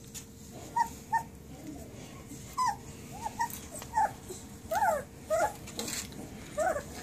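Newborn puppies, still toothless, squeaking and whimpering in a string of short high-pitched squeaks, about ten over several seconds, each quickly rising and falling in pitch.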